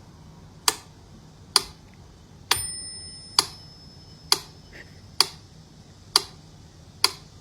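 Sharp, even ticks like a clock, about one a second. One tick about two and a half seconds in carries a short bell-like ring.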